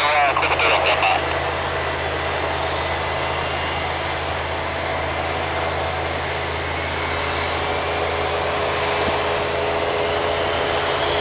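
Delta McDonnell Douglas MD-88's rear-mounted Pratt & Whitney JT8D turbofans running on the runway at the start of the takeoff, a steady jet rumble with a faint whine that rises slowly in the second half as the engines spool up. A short burst of voice in the first second is the loudest moment.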